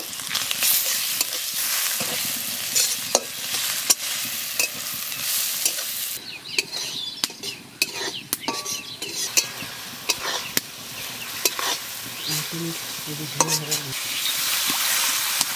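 Sliced onions and chilli paste sizzling in a metal wok while a metal spatula stirs and scrapes them, with frequent sharp clicks of the spatula against the pan. The sizzle dips for a few seconds midway.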